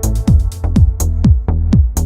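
Electronic dance music with a fast, steady beat: punchy kick drums whose pitch drops, crisp hi-hat ticks, and held synth chords above a deep bass.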